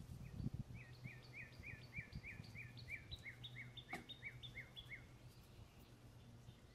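A bird singing a quick, even run of downslurred whistled notes, about three or four a second, that stops about five seconds in. A single sharp click comes about four seconds in, with a few faint knocks near the start.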